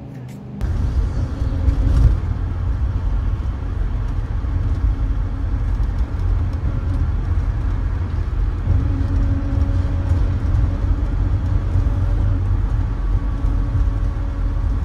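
Steady low engine and road rumble heard from inside a moving vehicle travelling along a road, starting abruptly about half a second in.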